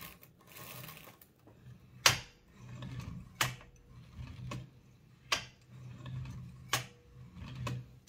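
Type-bar cylinder of a Toshiba BW-3112 Japanese kanji typewriter being turned by hand to select characters: a low rubbing rumble broken by six sharp metallic clicks, the loudest about two seconds in. The mechanism now moves smoothly after the bars were refitted and the friction was cured.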